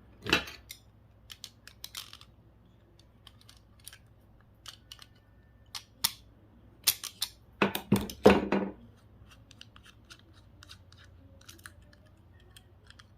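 Hand snips cutting connector plugs off a small electronics circuit board: a scattered run of small clicks and snips, with a louder burst of several cuts about seven to eight seconds in.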